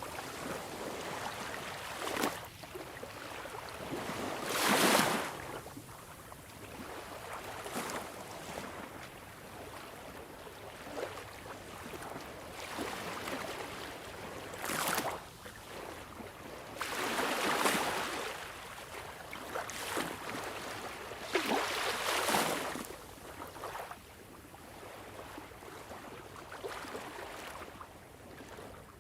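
Sea waves washing in: a continuous rushing wash that swells into louder breaking surges every few seconds, irregularly, then falls back.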